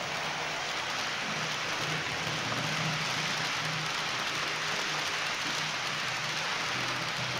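H0-scale model freight train of VTG tank wagons rolling past on the layout's track: a steady hiss-like running noise of wheels on the rails, with a low hum underneath that swells and fades.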